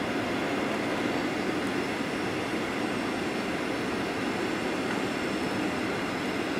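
Steady cabin noise of a Boeing 737-800 descending on its landing approach: the rumble of its CFM56 turbofan engines and the rush of air over the fuselage, with a faint steady high whine above.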